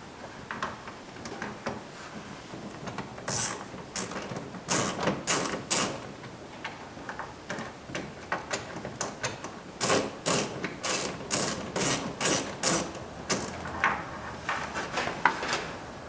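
Hand ratchet clicking in bursts of quick strokes as it drives bolts in.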